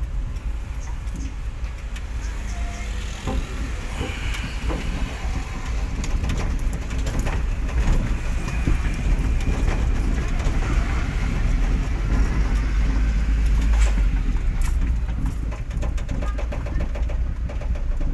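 A vehicle on the move: steady engine and road noise with a heavy low rumble throughout.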